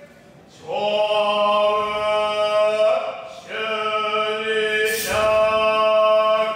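A man chanting shōmyō, Buddhist liturgical chant, in long held notes on a steady pitch. It pauses briefly at the start and again about three seconds in before the next held phrase.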